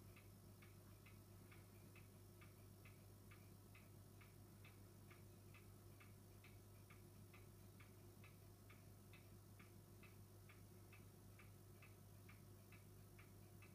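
Near silence: faint, regular ticking, about three ticks a second with alternate ticks a little stronger, over a low steady hum.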